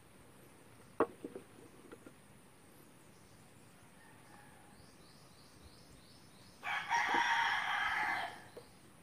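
A rooster crows once near the end, a single call about a second and a half long. A few light clicks come about a second in.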